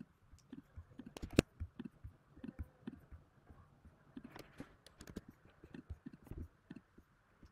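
Scattered, faint clicks of a computer mouse and keyboard keys, with one sharper click about a second and a half in.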